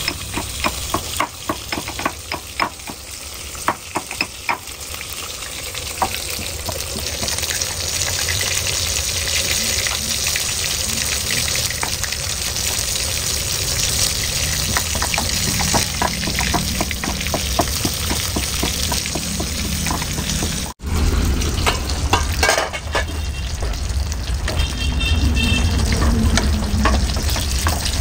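A black stone pestle pounding in a stone mortar, a quick string of knocks, gives way to a steady frying sizzle. After a sudden break about three-quarters of the way through, a pan of gongura leaves, tomatoes and green chillies boils on a gas burner with a low rumble, and a steel spoon clinks against the pan as it is stirred.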